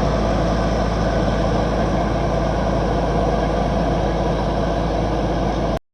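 Heavy vehicle engine running steadily with a strong low rumble, cutting off suddenly near the end.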